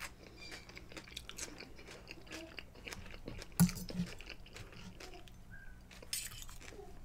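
Close-miked chewing of food, with scattered small clicks of a knife and fork and one sharper knock about halfway through.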